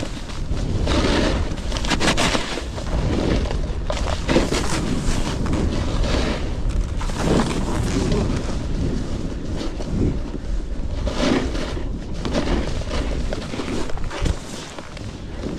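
Snowboard edges scraping and carving across packed snow in uneven surges, with wind buffeting the microphone as a constant low rumble.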